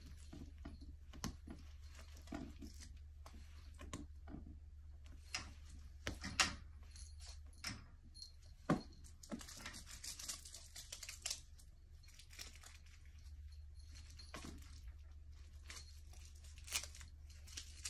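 Soft scattered rustles and light clicks from a cat rolling and rubbing against a fleece-covered cat-tree platform, with small jingles from the bell on her collar. The rustling turns denser for a couple of seconds about halfway through. A low steady hum runs underneath.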